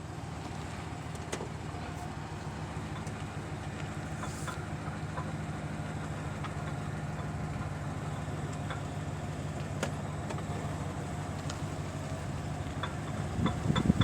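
2013 Ram 1500 pickup running steadily with a low, even hum, with a few faint clicks.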